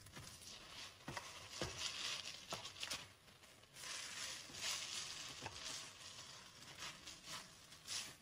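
Black slotted spatula stirring and tossing chicken and bell pepper strips in a nonstick kadai over a high gas flame: faint, irregular swishing strokes and light clicks against the pan, with a soft sizzle of the stir-fry underneath.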